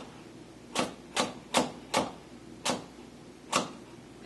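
Chef's knife slicing through a rhubarb stalk onto a wooden cutting board: six sharp knocks of the blade hitting the board, the first four about every half second, then two more spaced wider apart.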